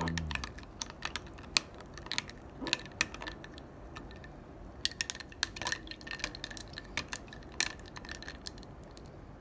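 Metal spoon clinking against ice cubes and a glass tumbler while stirring an iced drink and setting ice into it: irregular sharp clinks, some close together.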